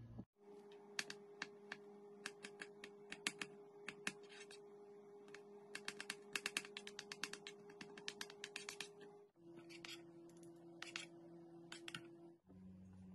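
Quick faint clicks and crackles of hands handling and folding thin samosa pastry sheets, thickest a little past the middle, over a steady low hum that changes pitch twice.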